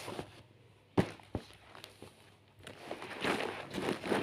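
Two light knocks about a second in, then rustling of cloth as a baby towel is pushed into a fabric baby bag and the bag is handled.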